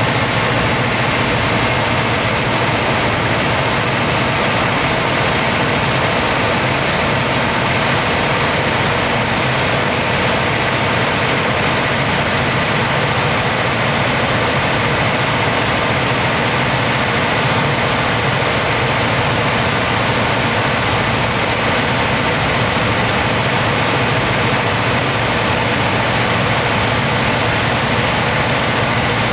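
Aeronca 7AC Champion's four-cylinder piston engine and propeller running steadily in cruise, heard from inside the cockpit together with the rush of the airflow.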